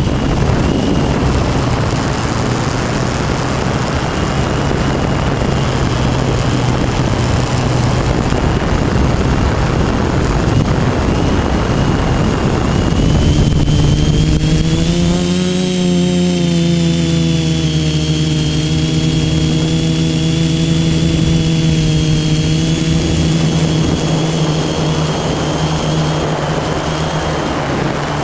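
Electric motors and propellers of a multirotor FPV drone, heard close up from its onboard camera: a loud, steady buzzing hum in flight. About 13 seconds in the tone becomes clearer, rises briefly in pitch, then holds steady.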